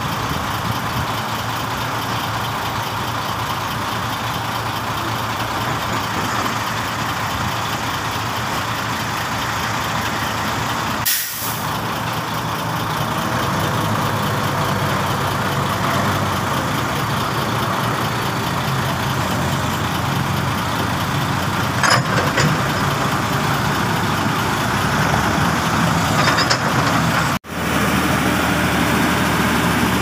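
Heavy diesel dump truck engines running steadily, with a short sharp sound about two-thirds of the way through.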